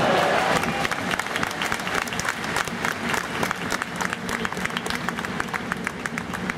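Ice hockey arena crowd applauding a goal: dense clapping from many hands. Louder crowd noise falls away about half a second in.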